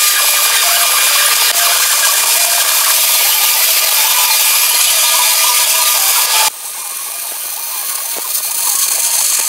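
MIG welding arc crackling and sizzling steadily as a fillet weld pass is run. It breaks off suddenly about six and a half seconds in, and a quieter crackle follows that grows louder near the end.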